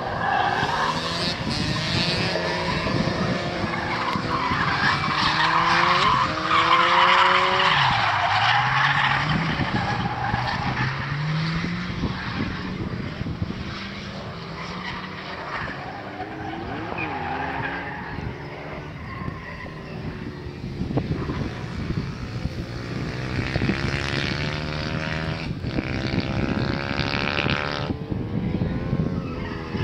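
Drift cars' engines revving hard, their pitch rising and falling over and over, with tyres screeching as the cars slide sideways.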